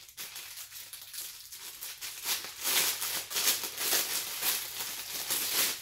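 Clear plastic packaging bag crinkling and rustling as it is worked open by hand, louder from about two seconds in.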